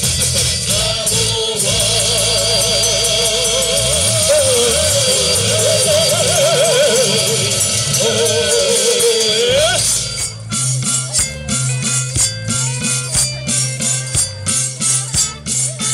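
Live folk band music. For about ten seconds a wavering melody line with strong vibrato runs over a full accompaniment. Then the music drops to a sparser rhythmic pattern of percussion hits, with a rattle or tambourine, over a steady bass pulse.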